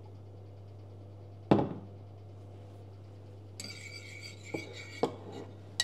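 A glass olive-oil bottle is set down on the counter with a single knock about one and a half seconds in. From about halfway, a metal tablespoon scrapes and clinks in an oven dish, spreading oil over its bottom, with a few light knocks near the end. A low steady hum runs underneath.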